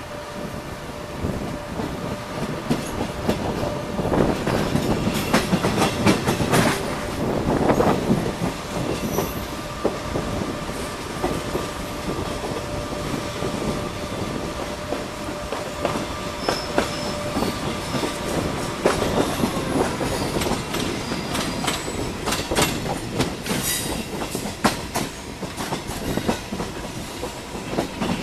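A train's wheels rolling slowly over rail joints and pointwork, with a steady run of clicks and clatter and some wheel squeal. The clatter is heaviest about four to eight seconds in.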